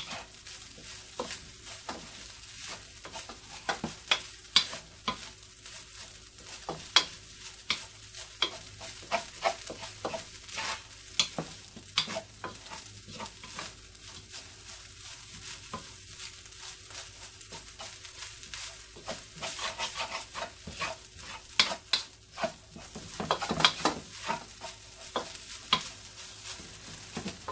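White rice sizzling in a wok on high heat while a wooden spatula stirs and scrapes it, making irregular scraping taps against the pan.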